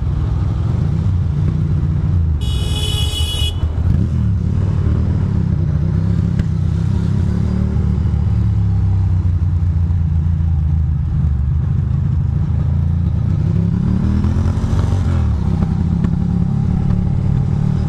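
Ducati Monster 620's air-cooled L-twin engine running on the move, its pitch rising and falling as the throttle is worked, about four seconds in and again about fourteen seconds in. A brief high-pitched tone sounds about two and a half seconds in.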